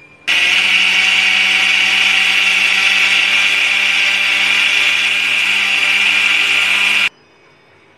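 Electric mixer grinder (mixie) running at full speed, grinding coconut, green chillies and roasted gram into chutney: a steady, loud motor whine with a low hum beneath. It starts just after the opening and cuts off suddenly about seven seconds in.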